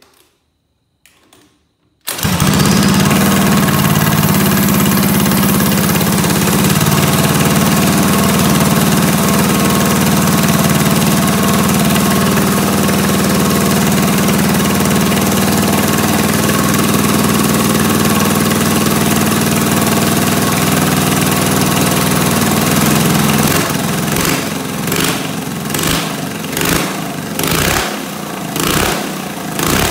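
Predator single-cylinder four-stroke kart engine with a three-stage header pipe starting about two seconds in and running loud and steady at a fast speed. Near the end it drops to a lower, uneven, pulsing run.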